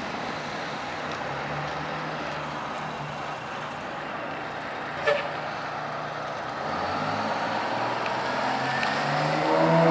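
A fire engine's Detroit Diesel 6V92 two-stroke V6 runs steadily as the truck pulls out. Over the last few seconds it grows louder and rises in pitch as the engine is throttled up. A brief sharp sound comes about halfway through.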